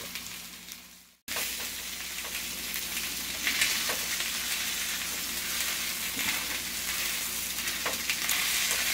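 Two steaks sizzling in a hot grill pan: a steady frying hiss, with a few light clicks of metal tongs against the meat and pan. The sound drops out briefly about a second in.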